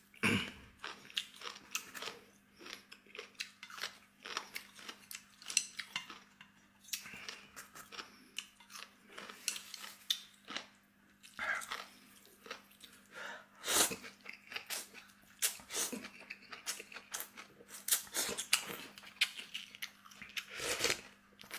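A person chewing crisp deep-fried fish close to the microphone: irregular crunches and mouth sounds, with one louder crunch about two-thirds of the way through.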